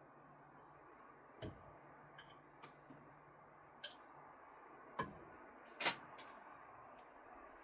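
Thrown screwdrivers striking a throwing target, a series of short sharp knocks at irregular spacing, the loudest about six seconds in.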